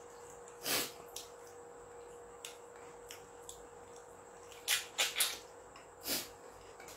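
Mouth noises of a man eating with his hands: short, sharp smacking and sucking sounds, one about a second in, a quick run of three around five seconds in and another near the end, with small clicks of chewing between them. A faint steady hum runs underneath.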